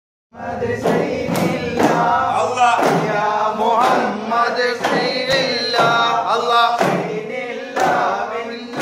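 Daff muttu: a group of men singing in chorus while beating daf frame drums, the drum strokes falling steadily under the voices.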